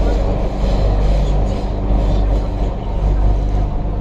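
Cabin noise of an MTR Kwun Tong Line Q-Train metro train running between stations: a steady low rumble with a few constant hums underneath.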